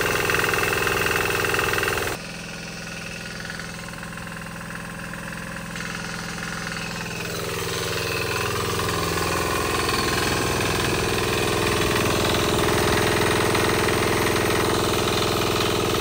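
Small single-cylinder diesel engine running a belt-driven generator under about 650 watts of charging load, with a fast, rhythmic knocking beat. The sound drops abruptly about two seconds in, builds back up between about six and ten seconds in, and then runs steadily and loudly.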